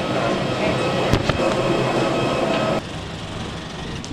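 Airliner cabin noise, a loud steady hum, with a couple of sharp knocks about a second in. About three seconds in it drops suddenly to quieter jet-bridge ambience.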